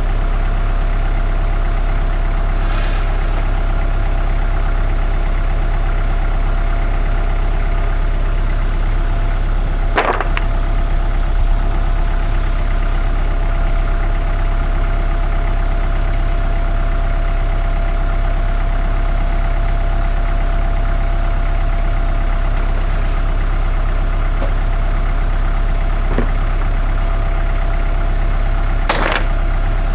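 Sawmill engine idling steadily, with a few sharp knocks over it, one about ten seconds in and another near the end.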